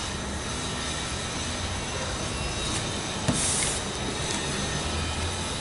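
Steady background hiss with a low rumble. About three seconds in there is a short knock and a brief rustle, from sneakers being handled.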